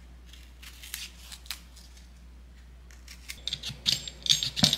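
A kitchen knife peeling vegetables over a wooden cutting board. A few faint scraping strokes on onion skin come first, then quick clicks and scrapes of the blade working a rutabaga's hard skin grow busier and louder over the last second or two.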